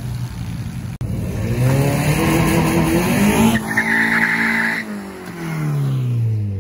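A car engine revving hard as it launches on a drag strip. The pitch climbs for about two seconds, then holds high with a burst of tire squeal, then drops away steadily as the car pulls past.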